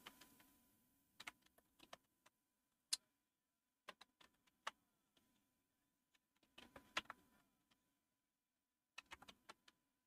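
Scattered keystrokes on a computer keyboard while a file path is typed with Tab completion: single taps a second or so apart, then two short runs of quick taps about seven and nine seconds in, with quiet between.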